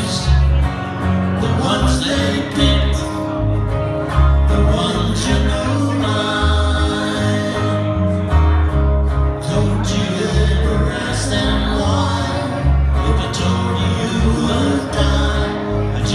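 Live amplified band: electric bass and electric guitar playing a song together through PA speakers, with male singing at times.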